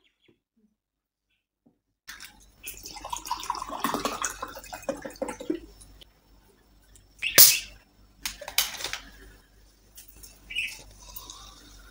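Water being poured into a glass for a few seconds. Then a short, sharp hiss as a bottle of Thums Up cola is opened, the loudest sound. Near the end comes a faint fizzing hiss.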